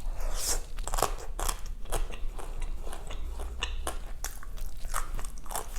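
Close-miked chewing and biting of crunchy food, many small irregular crunches and wet mouth clicks.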